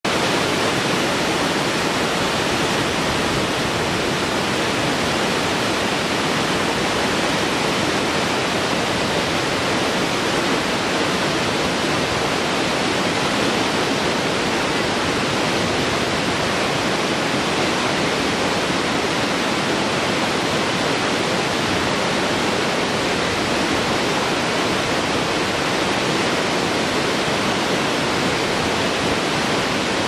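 Waterfall cascading over many tiers of rock, the water rushing steadily and loudly.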